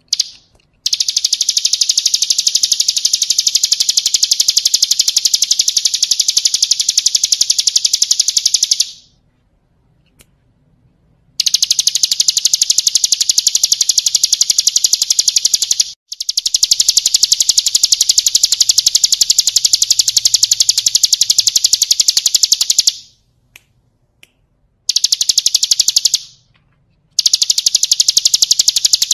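Ciblek kristal (a prinia) singing its rapid, drill-like trill: long runs of fast, high-pitched repeated notes, each lasting several seconds, broken by short pauses.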